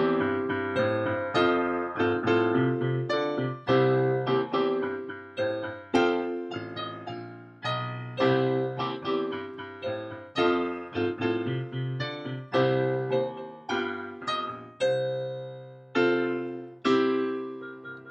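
Piano played as a four-hand duet: a slow blues of struck chords over a repeating bass, each chord fading before the next.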